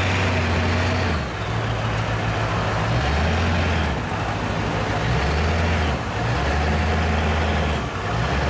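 Flatbed tow truck's engine and hydraulic winch running under load, hauling a pickup with a truck camper up the tilted bed. The steady low engine hum drops out and shifts pitch every one to two seconds as the winch is worked.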